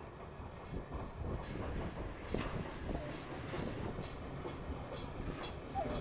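Steam tank locomotive and its train running over a girder bridge: a steady rumble of wheels with scattered knocks from the rail joints, growing louder about a second in as it draws level.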